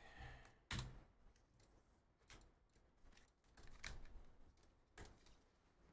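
Near silence broken by a few faint, scattered clicks of computer keyboard keys.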